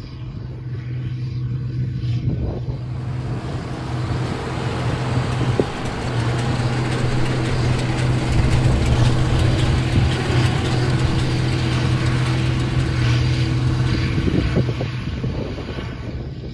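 International 5488 tractor's six-cylinder turbo diesel running steadily under load while pulling a New Holland BB940 big square baler through straw, with the baler's mechanism clattering. The sound swells for several seconds in the middle, then eases back, as the rig passes.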